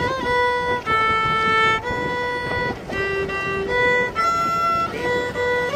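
Solo violin playing a waltz melody, bowed in mostly long held notes that step from pitch to pitch.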